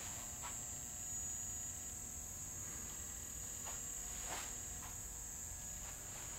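Quiet room tone: a steady high-pitched whine over a low hum, with a few faint short rustles.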